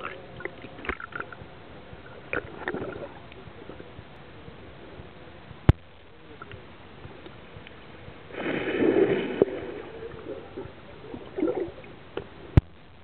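Muffled water movement and bubbling picked up by a camera underwater, with a louder rush of water about eight seconds in and two sharp knocks.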